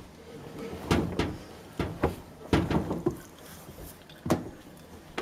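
Seven or so sharp knocks and clicks at irregular intervals, like hands handling a washing machine's door and controls.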